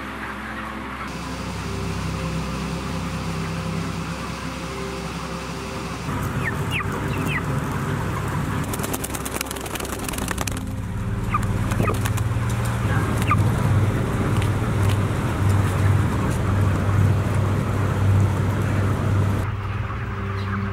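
A crowd of broiler chickens clucking, with a few short high peeps, over a steady low hum. The sound shifts abruptly several times as the clips change.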